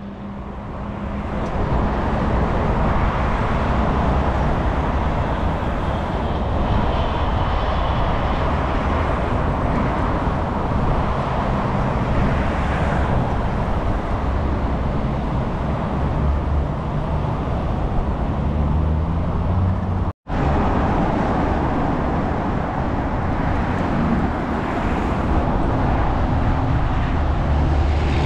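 Busy multi-lane motorway traffic: a steady blend of tyre noise and engines from passing cars, buses and trucks. The sound cuts out for an instant about two-thirds of the way through.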